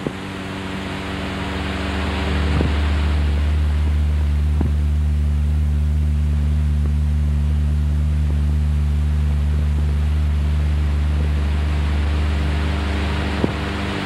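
Spaceship engine sound effect: a steady low drone that swells over the first couple of seconds and then holds, with a few faint clicks over it.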